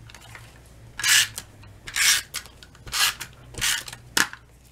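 Fingers rubbing a piece of patterned paper to press it flat onto cardstock: five short, dry rubbing strokes about a second apart.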